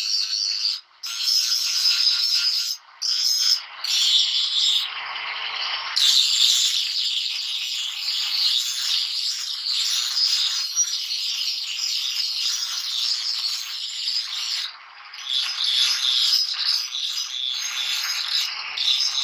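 Small hand-held electric angle grinder grinding a steel blade, a harsh hissing scrape that breaks off briefly a few times.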